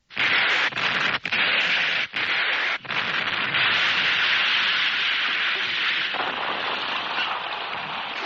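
Storm sound effect in a cartoon: a loud, steady hiss of wind-driven snow and sleet. It cuts out briefly a few times in the first three seconds and turns a little softer after about six seconds.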